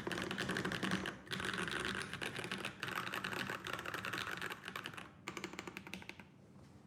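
Fast typing on a mechanical keyboard with Holy Panda tactile switches and GMK keycaps: dense runs of key clacks with brief pauses, stopping shortly before the end.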